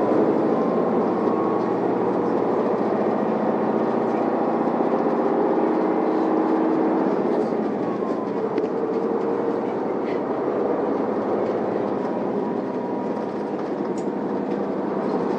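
Isuzu Erga city bus under way, heard from inside the cabin: the diesel engine and drivetrain run steadily with road noise, and their tones shift slowly in pitch. The running sound eases off a little in the second half.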